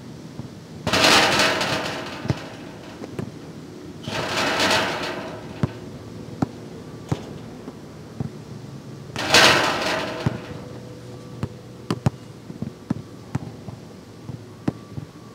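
Basketball shots hitting the metal backboard and hoop: three loud rattling crashes, each dying away over about a second. Between them the ball bounces on the hard court in short sharp knocks.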